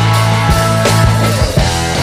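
Background rock music with a steady drum beat, electric guitar and a heavy bass line.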